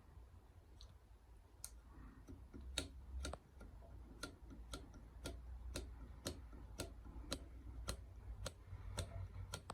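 Faint regular clicking, about two clicks a second, from a Shimano hydraulic brake lever being pumped repeatedly to burp air out of the brake.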